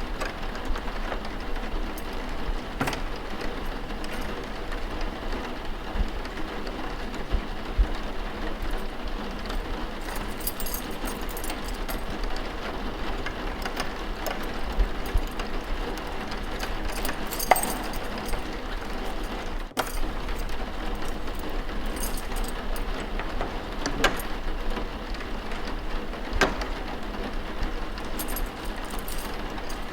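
Steady rain ambience under a low hum, with scattered soft knocks and a few brief rustles from a library-noise layer. The sound drops out for a moment about twenty seconds in.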